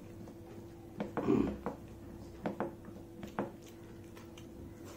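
Close-miked mouth sounds of a man eating rice and curry by hand: wet smacks and clicks of chewing in short clusters, about a second in, around two and a half seconds and around three and a half seconds, over a faint steady hum.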